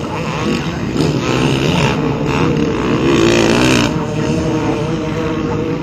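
Off-road racing motorcycles revving hard on a sand track, engine pitch rising and falling as the bikes accelerate and pass.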